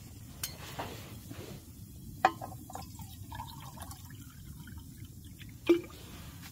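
Water poured from an insulated bottle into a stainless steel mug, with two sharp metal clinks of cup and bottle knocking together, over a low steady rumble.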